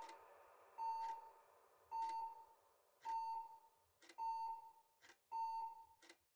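Cordless home telephone ringing: a short electronic beep repeating evenly about once a second.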